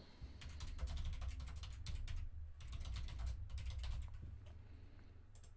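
Typing on a computer keyboard: a quick run of keystrokes that stops about four and a half seconds in.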